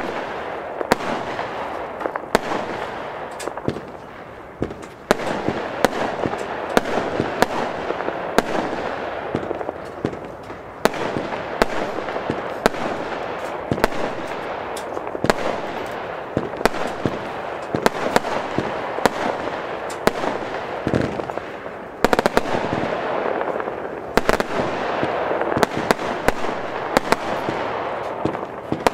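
ZENA Kracherblitz fireworks cake (batterie) firing shot after shot: launch thumps and sharp bangs over a dense, continuous crackle of bursting crackling stars, with brief lulls about four, ten and twenty-two seconds in.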